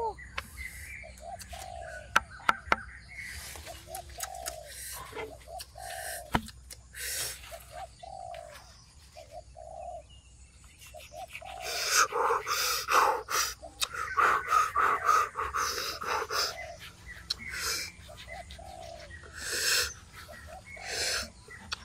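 Doves cooing over and over in short low notes, with other birds chirping, and a few sharp knocks.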